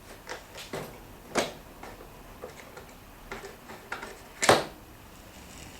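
Screwdriver undoing the Torx screws that hold the hinge to a dishwasher door: a run of irregular clicks and knocks of tool and metal parts, with a louder sharp knock about four and a half seconds in.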